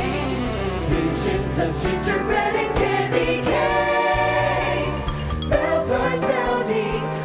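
A choir singing a Christmas song in sustained chords, with instrumental accompaniment and percussion.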